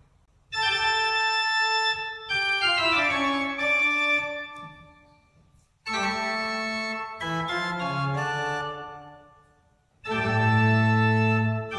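Newly installed church pipe organ playing three short phrases of sustained chords. Each phrase fades away before the next begins, and the third, about ten seconds in, comes in with a deep bass.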